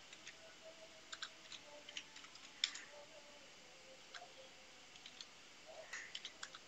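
Faint, irregular clicks of computer keyboard keys being typed, with a quick run of keystrokes near the end.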